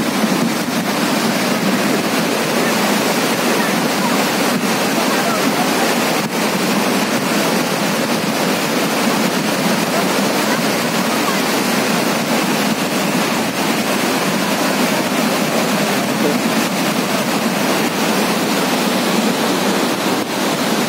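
Muddy floodwater rushing in a torrent: a steady, loud rush of water that does not let up.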